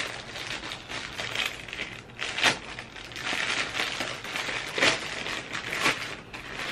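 Plastic mailer bag crinkling and rustling as it is handled and opened, with louder crackles about two and a half, five and six seconds in.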